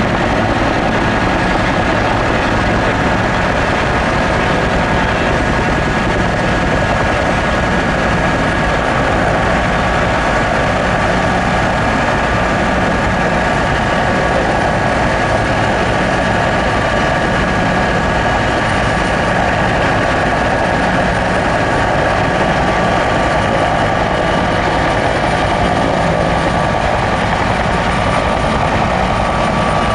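Bell UH-1-type two-bladed helicopter with a slung water bucket flying past, its rotor and turbine running steadily. A faint high turbine whine comes in about a third of the way through and grows stronger.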